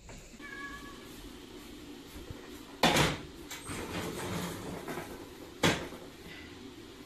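Kitchen oven door opened with a sharp clunk about three seconds in, then a second sharp clunk near six seconds as the baking dish goes into the oven, over a low steady hum.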